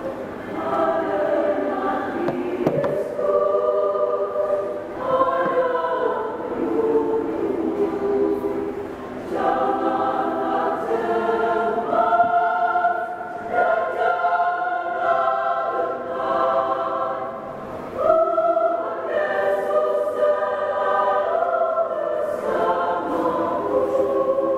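Women's choir singing a hymn, sustained phrases with several voices at once, pausing briefly for breath about ten and eighteen seconds in.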